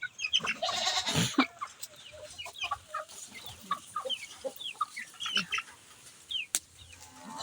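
Chickens clucking among many short, high peeps from small chicks, with a louder rustling burst about a second in.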